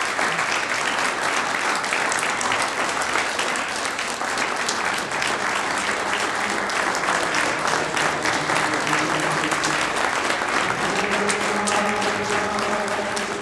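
Audience giving a standing ovation: many hands clapping in sustained, steady applause.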